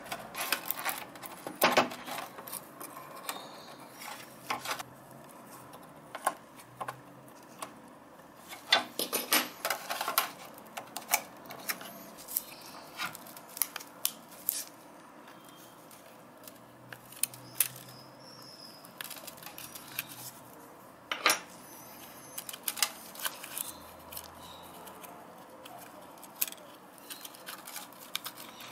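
Irregular small clicks, taps and scrapes of metal tweezers and a plastic pry tool working on the dirt-caked plastic and metal internals of a Canon PowerShot A490 digital camera during disassembly. The loudest clusters of clicks come about a second in, around nine seconds in, and a single sharp one a little past twenty seconds.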